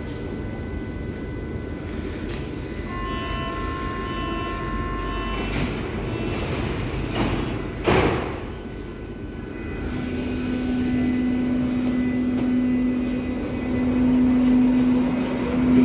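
Berlin U-Bahn H01-series train at the platform: a steady warning tone sounds for about two and a half seconds, the sliding doors shut with a bang about eight seconds in, then the electric traction drive starts with a steady hum that slowly rises in pitch as the train pulls away.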